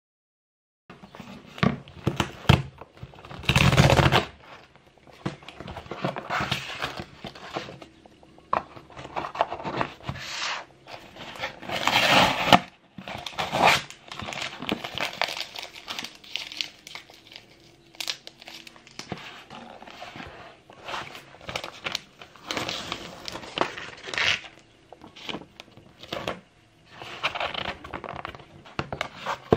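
A small cardboard jewellery box and paper slips being handled close up, starting about a second in: flaps opened and closed, paper rustling and crinkling in irregular bursts.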